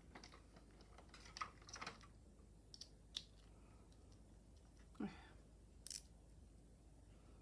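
Faint, scattered clicks and light taps of a precision screwdriver and small screws on a laptop's plastic case, with a short falling sound about five seconds in.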